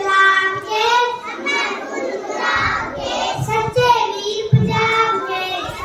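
A child singing, holding long notes that glide up and down, with a couple of low bumps in the middle.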